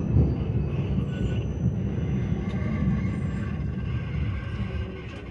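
Vienna tram running along its rails, heard from inside the car: a steady low rumble that dies down near the end as the tram slows.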